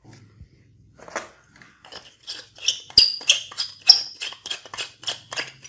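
LED bulbs being screwed by hand into plastic screw-type lamp holders: a quick run of short scraping clicks from the threads turning, about three or four a second, loudest in the middle.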